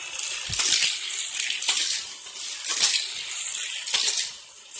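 Toy cars rattling along a plastic Hot Wheels track set, with a sharp plastic clack about once a second.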